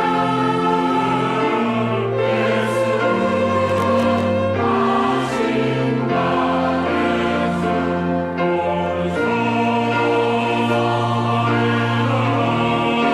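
Church choir singing an anthem in several parts, holding long chords that change every second or two over a moving bass line.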